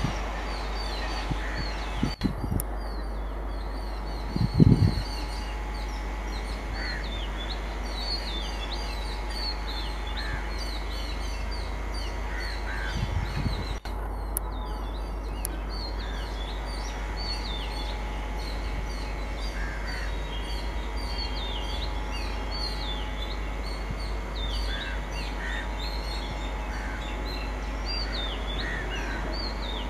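Birds chirping and calling steadily over a low hum, with a few short lower calls now and then. There are two brief low bumps, the loudest about four and a half seconds in and a smaller one near thirteen seconds.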